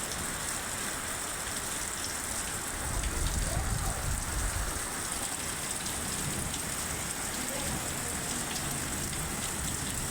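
Heavy rain falling steadily, with a hiss and the patter of drops on nearby surfaces. A low rumble swells for a couple of seconds near the middle.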